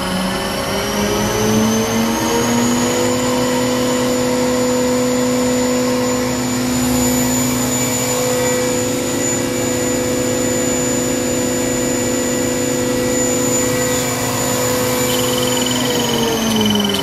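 Spindle of a Haas VF2-YT vertical machining center (15,000 rpm spindle) running. Its whine rises in pitch for the first few seconds as it spins up, holds a steady speed, then falls near the end as it slows down.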